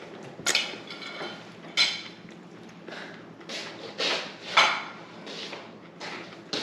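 Kitchenware being handled: two sharp, ringing clinks of a utensil against a dish or pan, then several short scraping and rustling sounds.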